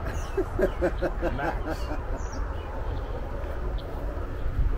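A man laughing briefly, a quick run of short 'ha-ha' syllables over about the first second and a half, over a steady low rumble of wind on the microphone. A few faint bird chirps come through.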